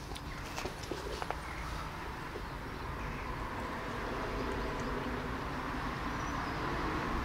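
Rumble of a passing vehicle or distant traffic, growing louder toward the end, with a few faint clicks in the first second and a half.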